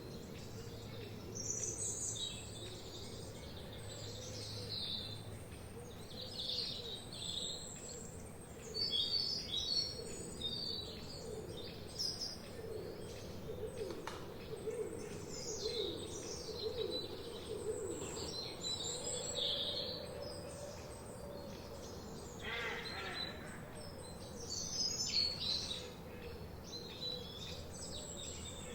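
Several forest songbirds singing and chirping in overlapping short, varied phrases, with some lower, sweeping notes in the middle.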